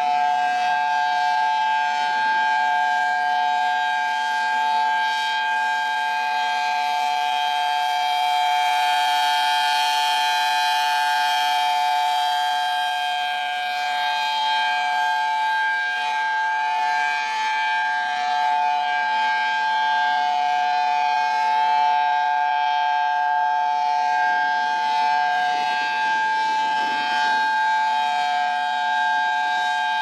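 Emergency alert alarm: a steady, siren-like chord of two close tones, held without rising or falling.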